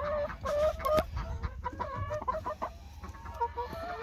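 Several chickens clucking close by, a run of short, overlapping pitched calls, with a sharp click about a second in.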